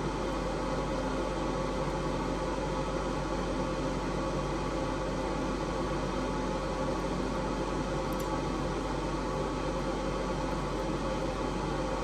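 Steady mechanical hum with a low drone and several constant tones, unchanging throughout, with no strikes or tool sounds standing out.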